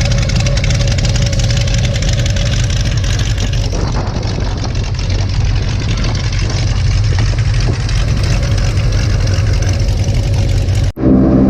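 Pickup truck engine running steadily with road and cabin noise. Near the end it cuts off abruptly to a different, more even-pitched engine hum.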